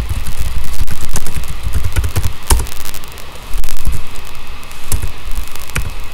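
Irregular keystroke clicks from a computer keyboard, the sharpest about two and a half seconds in, over a loud low rumble and a faint steady high whine.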